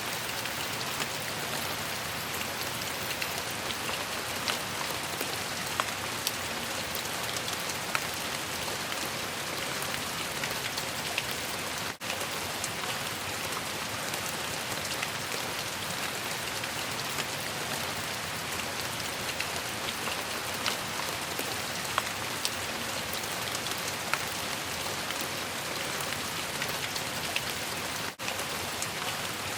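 Steady rain falling on a surface, with scattered louder drop ticks; the sound dips out very briefly twice, about twelve seconds in and near the end.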